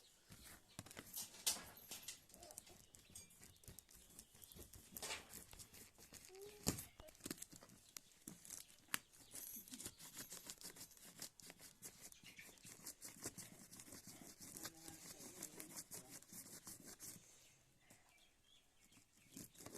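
Soft crinkling and crackling with many sharp clicks and a few louder snaps, as of packaging being handled and torn; it thins out near the end.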